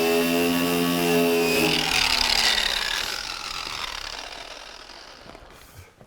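Electric power tool motor running steadily, then switched off about two seconds in and winding down with a falling whine over several seconds.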